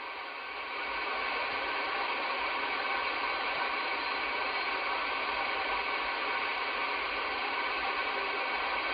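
Steady hiss of band noise from a Midland Alan 9001 CB radio's speaker on the 11-metre band, with no station coming through. It gets a little louder about a second in.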